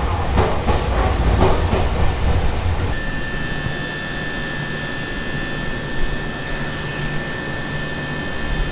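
Nankai 6000 series commuter train standing at the platform. First a low rumble with scattered clicks, then, from about three seconds in, the quieter sound inside the car with a steady high whine.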